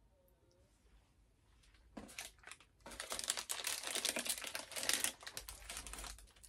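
About two seconds of near silence, then a snack wrapper crinkling and rustling in the hands, a dense run of small crackles that lasts until near the end.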